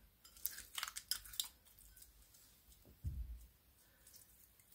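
Sticky crackles and pops as glitter slime is pulled out of its plastic tub by hand, a quick cluster of sharp crackles in the first second and a half. A soft low thud about three seconds in.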